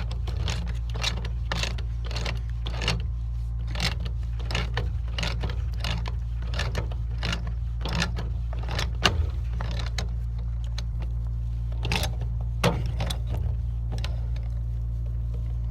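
Steady run of sharp metallic clicks, about three a second, from a PEX adapter being cranked tight onto a Delta shower valve, over a steady low hum.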